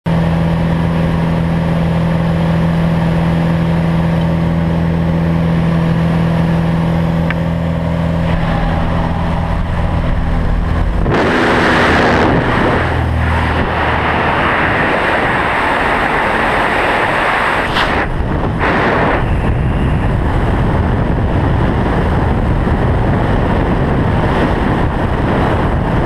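Single-engine light aircraft's piston engine and propeller droning steadily inside the cabin. About eleven seconds in, a loud rush of wind takes over as the skydiver leaves the plane, and wind buffets the helmet-camera microphone through the freefall.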